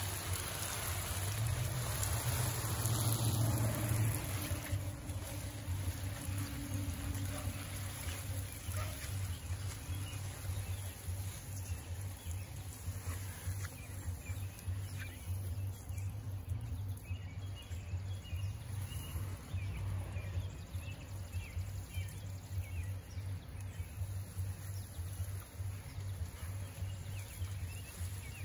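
Outdoor garden sound: a steady hiss of water spraying from a garden hose for the first few seconds, then quieter, with small bird chirps scattered over a low hum.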